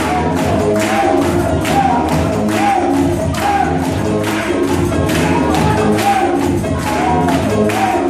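Dance music with a steady beat, about two strokes a second, played over PA loudspeakers.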